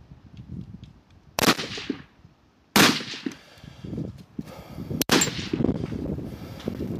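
Three rifle shots on a high-power match firing line spread over about four seconds, each a sharp crack with a ringing, echoing tail. Wind rumbles on the microphone between them.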